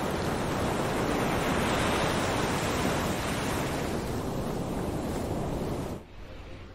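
Ocean surf: a steady wash of breaking waves, which cuts off abruptly about six seconds in.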